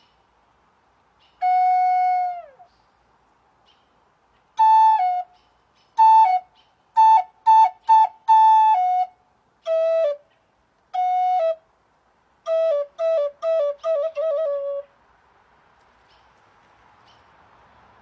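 Wooden end-blown flute playing a slow melody in separate phrases: one held note about a second and a half in, a run of notes from about four and a half seconds, and a quick string of short repeated notes near the end. Many notes slide down in pitch as they end.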